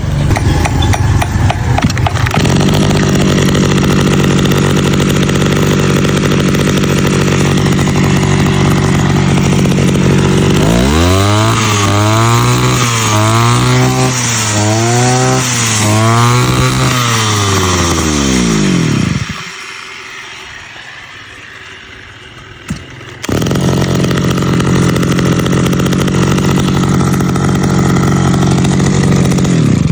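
Two-stroke engine of a 328 brush cutter running with a newly fitted two-needle carburetor: it holds a steady speed, is revved up and down about four times, then winds down and drops out. After a short lull with one click it is running steadily again.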